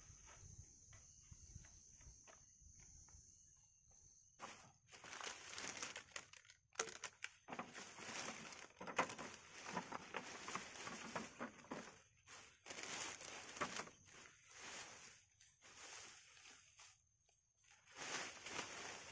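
Thin plastic carrier bag rustling and crinkling in irregular bursts as things are pulled out of it, starting about four seconds in.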